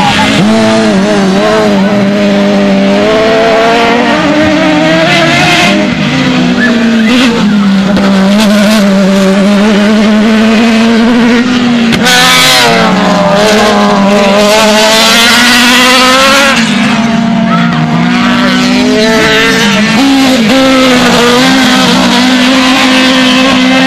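Autocross race cars' engines running hard on a dirt track, their note climbing and dropping again and again as they accelerate and lift for the bends. From about halfway through, a car passes close with a louder hiss of sliding tyres and thrown dirt.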